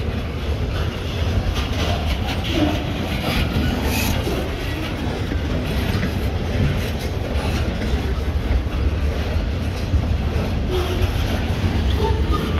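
Loaded centerbeam flatcars of a freight train rolling past on the rails: a steady low rumble with scattered wheel clacks over the rail joints.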